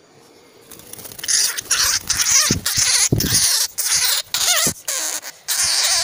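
Leaves and twigs rustling and brushing hard in quick, irregular bursts as someone pushes hurriedly through bushes on foot, with a few short squeaks mixed in.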